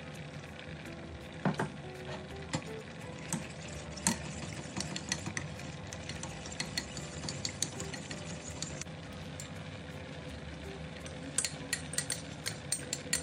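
A metal spoon stirring custard powder into cold milk in a ceramic bowl, with scattered clinks of the spoon against the bowl over a steady background hiss. Near the end comes a quick run of clinks and taps as the mix is tipped into a steel pan of hot milk.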